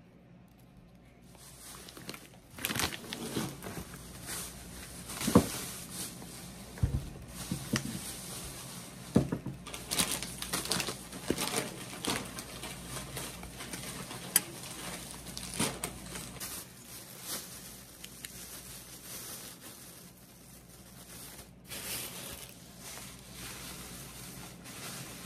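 Banana-leaf wrappers crinkling and tearing as they are peeled off suman sa lihiya by hand and with a fork, with irregular sharp clicks of the fork and fingers against the takeout tray. Near the end, small plastic sauce cups are handled.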